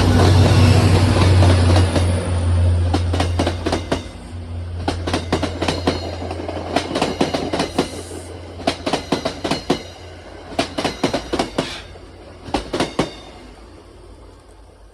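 A train passing. The locomotive's low engine hum fades over the first few seconds, then the wheels click over rail joints in quick groups as the cars roll by. The clicks stop a couple of seconds before the end and the sound dies away.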